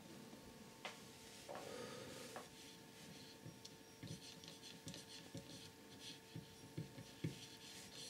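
Faint handling sounds from a hand working on a small model Stirling engine: scattered small clicks and ticks, with a brief rub about a second and a half in, over a faint steady hum.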